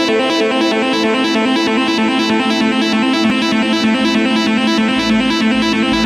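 Background music with synthesizer and keyboard over a steady beat of about three to four pulses a second.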